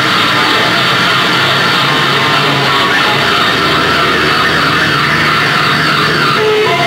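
Loud, dense rock music with distorted electric guitar, heavy-metal style.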